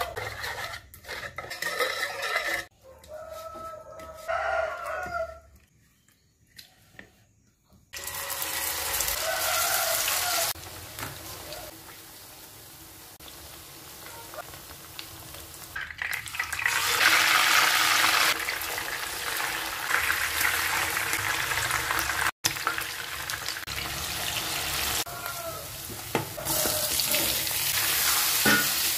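At first a spoon clinks and scrapes on a ceramic plate while seasoning is mixed, with a rooster crowing in the background. From about eight seconds in, food sizzles steadily in hot oil: corn fritters frying in a pan, then sliced luffa in a wok. The sizzling is loudest in the middle stretch.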